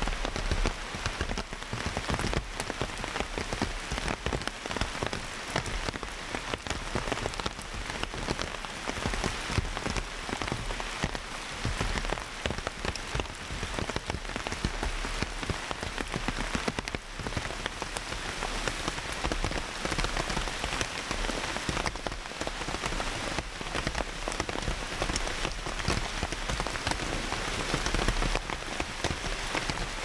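Heavy rain falling steadily, a dense patter of many drops striking surfaces without a break.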